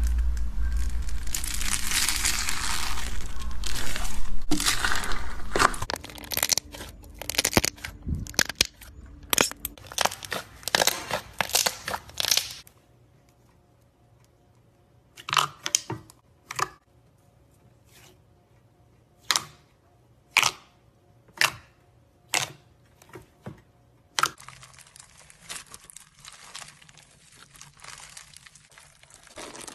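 Hands working slime and beads. First comes a dense crunching rustle as a hand presses into a bowl of small beads. Then thick slime is folded and squeezed with single sharp pops and clicks about once a second, and near the end foam-bead slime (floam) is stretched with a steady fine crackle.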